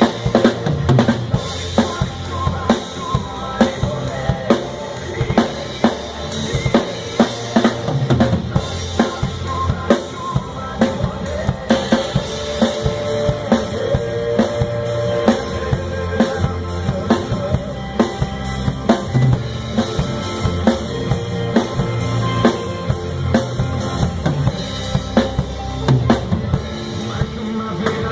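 Drum kit played in a steady groove, with regular bass drum and snare strokes and rimshots, over a backing track of recorded music.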